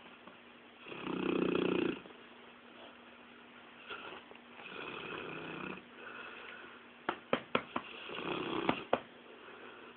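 English mastiff snoring in its sleep: a loud snore about a second in, then softer snores every few seconds. A few sharp clicks come in quick succession around seven seconds in, and two more near nine seconds.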